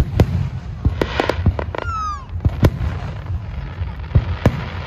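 Aerial fireworks shells bursting: a quick cluster of sharp bangs in the first two seconds, then a few single bangs, over a steady low rumble.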